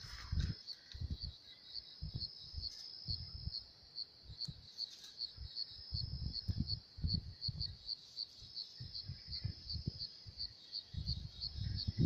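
A cricket chirping steadily, a high pulsed chirp about three times a second, over irregular low rumbles and thuds.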